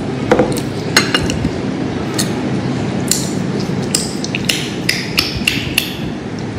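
A string of irregular sharp knocks and clinks of kitchenware, utensils striking dishes or pots, coming closer together in the second half.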